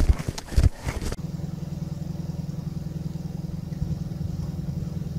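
Footsteps crunching and thudding in snow for about a second, then a vehicle engine running with a steady low, pulsing hum.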